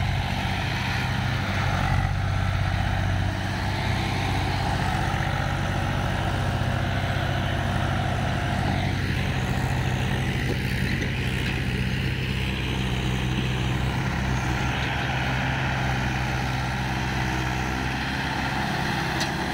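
Diesel farm tractor engines running steadily as they pull loaded sand trailers through soft sand, a continuous low drone. The engine note shifts about two-thirds of the way through as a different tractor comes close.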